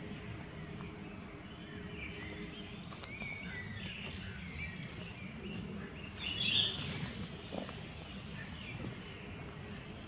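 Common nightingale singing: a run of varied short phrases, then a loud burst of rapid high notes about six seconds in, over steady low background noise.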